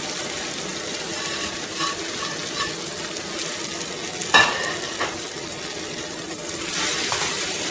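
Peas and tomato sizzling in oil in a kadhai while roasted semolina is stirred in with a metal spoon, with a few light taps and one sharp clink of the spoon against the pan about four seconds in.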